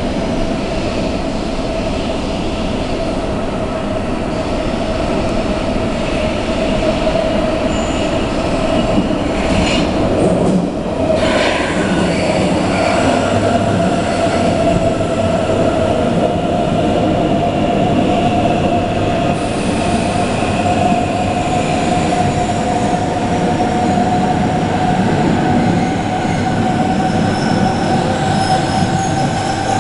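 DB class 474 S-Bahn electric train running out of the tunnel and into an underground station, with a steady whine that climbs slightly in pitch throughout. A couple of sharp knocks come about ten seconds in, and high wheel squeal sets in soon after as it pulls in along the platform.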